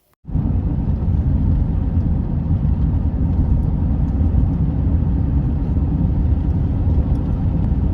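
Steady rushing roar of a large waterfall, deep and even with no rhythm, starting suddenly just after the beginning.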